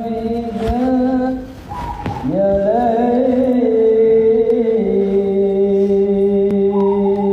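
A voice singing a sholawat, drawing out long held notes with slow slides between pitches and no clear words. There is a short break about two seconds in.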